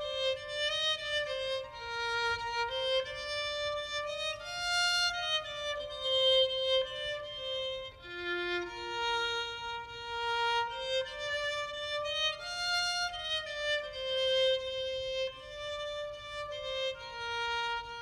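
Solo violin playing a slow, unaccompanied melody, one held note at a time.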